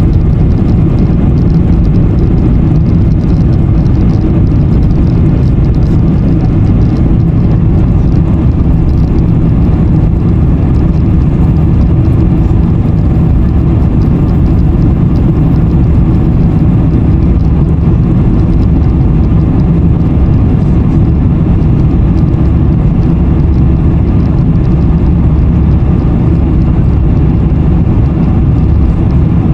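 Cabin noise of a Boeing 747-400 climbing out just after takeoff: its engines and the rushing air make a loud, steady low rumble heard from inside the cabin.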